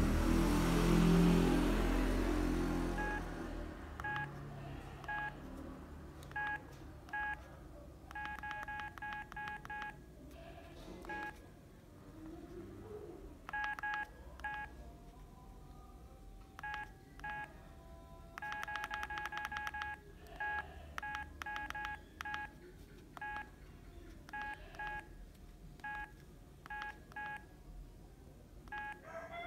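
Keypad beeps of a Strawberry budget feature phone as its menu buttons are pressed: short beeps of one pitch, some single and some in quick runs. The tail of the phone's start-up tune fades out in the first couple of seconds.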